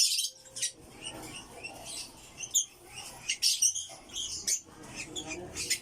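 African lovebird giving short, shrill chirps and squawks in irregular bursts, several times, while it is held for leg banding.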